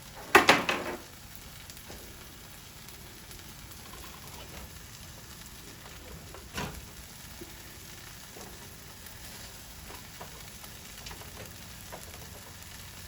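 Eggless Just Egg omelet frying in a buttered pan: a soft steady sizzle. A brief clatter comes about half a second in, and a single knock about six and a half seconds in.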